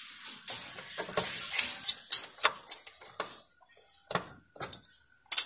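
Handling noise from a small tone-control circuit board: rustling and a run of sharp clicks as fingers work its potentiometer knobs and wire leads, then a few separate clicks near the end.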